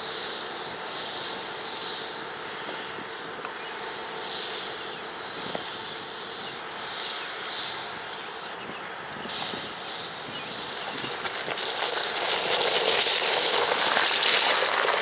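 EMD GP30 diesel locomotive engine running on startup, steady at first and growing louder and noisier from about ten seconds in.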